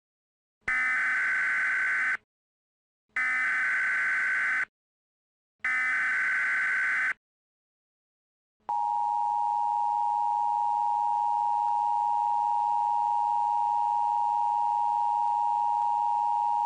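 Emergency Alert System tones, slowed down: three warbling data-header bursts of about a second and a half each, with short silent gaps, then the steady two-tone attention signal held for about eight seconds before it cuts off.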